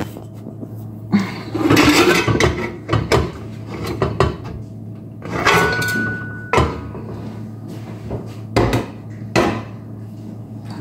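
Metal clanks and clicks of a stainless steel pressure cooker's lid being handled and opened, a string of separate knocks with a brief high ringing note about halfway through.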